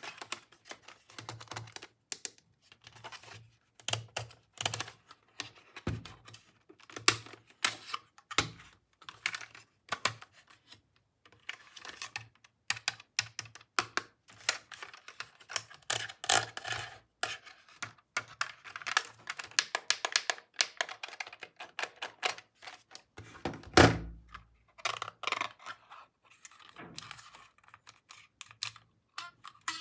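Plastic toy pieces being handled and unpacked: a dense, irregular run of light clicks, taps and rattles, with one heavier knock about 24 seconds in.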